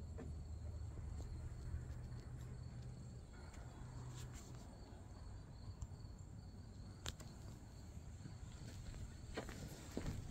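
Faint steady chirring of insects outdoors, likely crickets, with a few footsteps on the wooden deck near the end.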